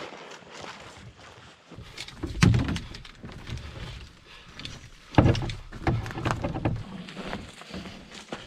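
Hollow knocks and thumps of a canoe and gear being handled at a portage landing, with two heavier thuds about two and a half and five seconds in.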